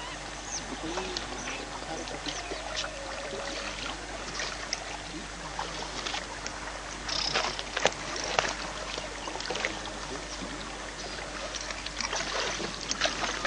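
Small wooden boat being poled through a reed marsh: water moving around the hull, with scattered knocks and rustles from the pole, hull and reeds.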